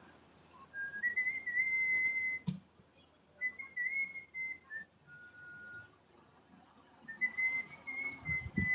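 A woman whistling a tune in three short phrases of high notes with gaps between them, and one lower held note in the middle.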